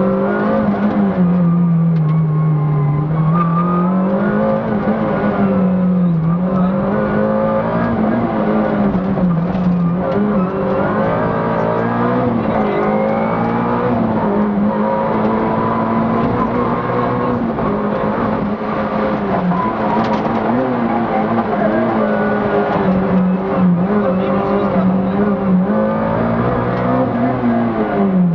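Competition car's engine heard from inside the cabin, revving hard. Its pitch climbs and drops again every few seconds through gear changes and lifts for the bends.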